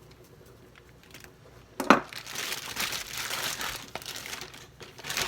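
A sharp knock about two seconds in, then a plastic bag crinkling and rustling as it is handled.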